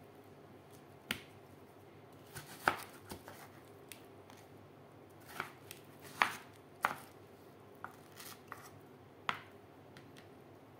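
Knife slicing through watermelon rind and striking a wooden cutting board, with pieces laid on the board: a dozen or so irregular sharp knocks and clicks.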